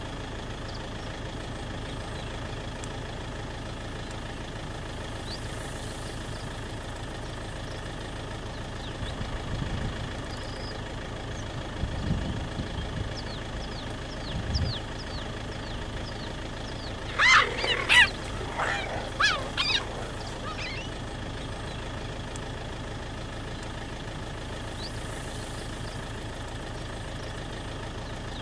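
A vehicle engine idling steadily throughout. A little past halfway comes a burst of several loud, high, bird-like chirping calls, the chirp of cheetahs.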